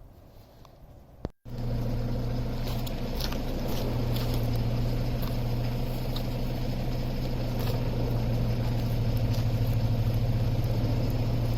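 Quiet at first, then from about a second and a half in, an engine running steadily at constant speed with a low, even hum.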